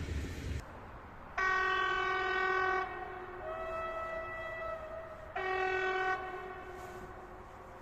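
Railway locomotive horn sounding in the distance: a long blast, a fainter note on a different pitch, then a shorter blast, signalling an approaching train. Before it, a brief rush of noise cuts off abruptly about half a second in.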